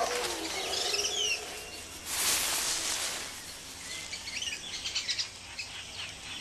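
Birds chirping in forest ambience: a lower falling call right at the start, two quick falling chirps about a second in, a short hiss of noise around two seconds, and a flurry of short high chirps near the end.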